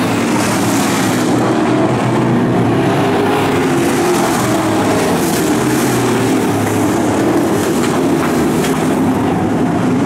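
Several pro stock dirt-track race cars' V8 engines running together around the oval, a steady overlapping drone of engines.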